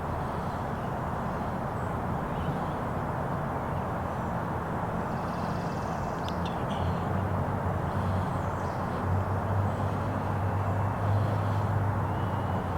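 Outdoor ambience: a steady rushing noise, with a low hum that grows louder in the second half and a few faint bird chirps.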